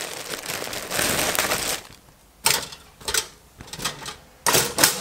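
Plastic bread bag rustling and crinkling as slices are pulled out, then a few sharp clicks and taps spaced well apart as the bread is handled and dropped into a toaster.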